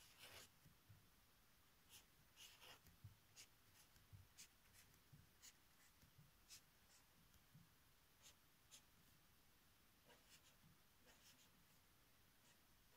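Faint pen-on-paper writing: a string of short scratching strokes as numbers and plus signs are written out.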